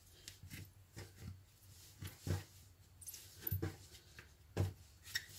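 Bread dough being kneaded by hand on a floured worktop: soft, irregular thuds and rubbing, about one every second, as the dough is gathered and pressed down.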